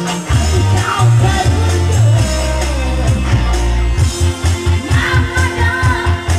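Pop song with a male or female singing voice, bass and a steady beat that becomes more prominent about four seconds in.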